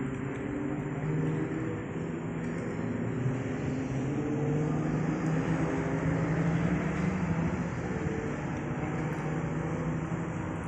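An engine running steadily with a low, slightly wavering hum, growing a little louder in the middle and then easing off.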